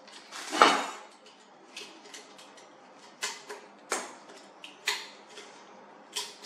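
Handling noises from a 3D printer's glass build plate being turned over in the hands: one loud short scrape about half a second in, then a few light clicks and taps.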